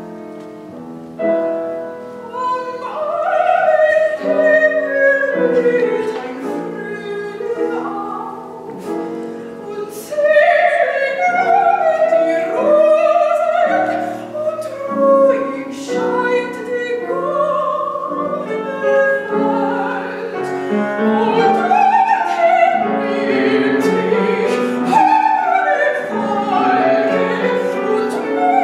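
A woman singing in classical operatic style with vibrato, accompanied on grand piano.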